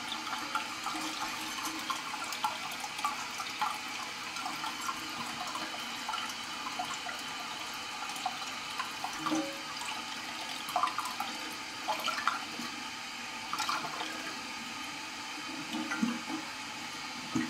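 Steady hiss of water running from the toilet tank's fill valve, with scattered light clicks and knocks as the new plastic flapper and its chain are handled and fitted over the flush valve.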